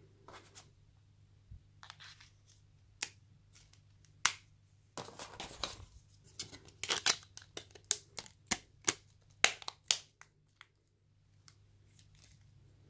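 Hands handling a Nokia N97 mobile phone's plastic body: scattered clicks, a scraping rustle about five seconds in, then a quick run of sharp plastic clicks and taps as the BP-4L battery is seated in its compartment and the back cover is handled.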